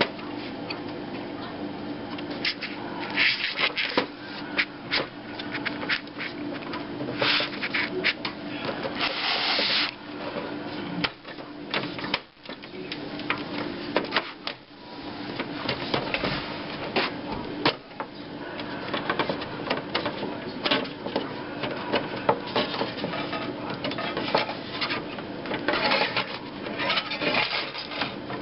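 Plastic front bezel of a PC case being handled and fitted back onto the metal case: irregular clicks, knocks and scraping of plastic against metal, over a steady low hum.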